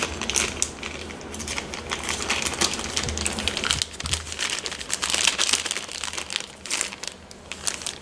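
Plastic bags and bubble wrap crinkling and rustling as they are handled and pulled out of a cardboard box, in an irregular run of crackles.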